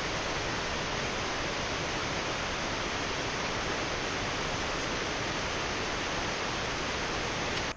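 Steady rushing of water pouring from the dam, an even hiss with no change in level, cutting off abruptly near the end.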